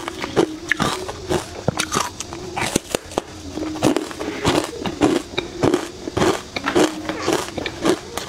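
Ice coated in matcha powder being bitten and chewed: a rapid, irregular run of sharp crunches and cracks.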